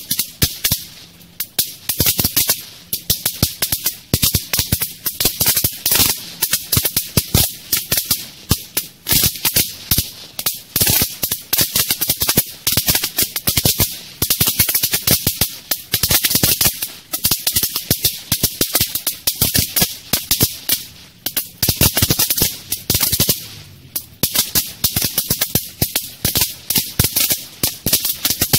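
Magic whip novelty firecracker string crackling as it burns up its length: a dense, rapid, uneven run of small sharp pops that starts suddenly and goes on without a break.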